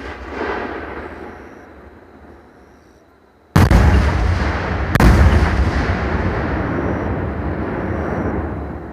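Fireworks shells bursting close by: the rumble of an earlier burst dies away, then two sharp booms about a second and a half apart. Each boom is followed by a long rolling rumble.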